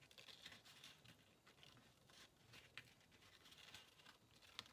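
Near silence, with faint rustles and light ticks of cardstock and ribbon being handled as a ribbon is pushed through slits in a paper pocket with the back of a craft knife; one slightly sharper tick near the end.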